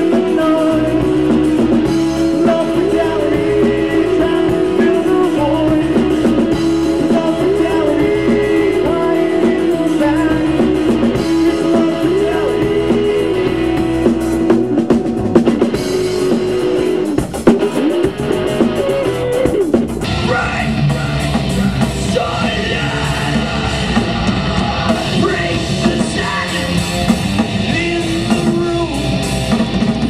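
Live rock band playing electric guitars, bass guitar and drum kit through outdoor stage speakers. About two-thirds of the way in, the music changes to a fuller, busier section.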